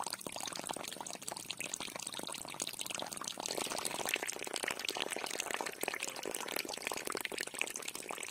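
Water from a toy tractor's small water pump spraying and splashing in a steady stream, a little louder from about three and a half seconds in.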